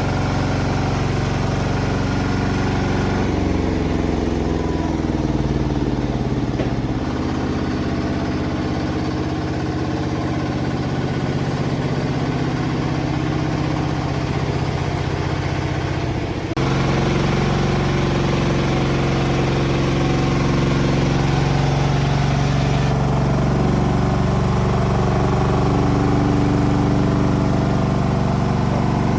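Large horizontal band sawmill running with a steady engine drone, its blade sawing through a large sapodilla (sawo) log. The drone's pitch shifts a few seconds in and changes abruptly just over halfway through.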